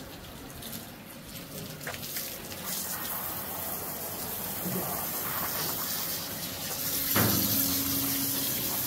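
Running water splashing while a horse is washed. About seven seconds in, the sound gets louder and a steady low hum joins it.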